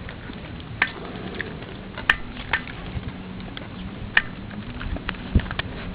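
Scattered light clicks and taps, about a dozen at irregular moments, from four-week-old pit bull puppies moving about, over a low steady hum.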